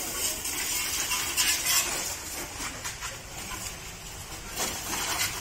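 High-pressure water jet from a hose spraying onto a motorcycle, a steady hiss that splatters unevenly as the stream moves over the bike.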